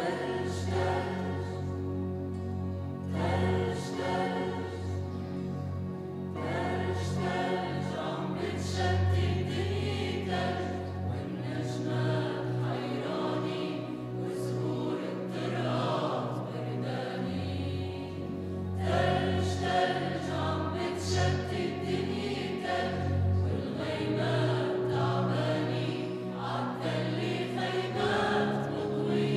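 Mixed choir of men and women singing together, accompanied by acoustic guitar.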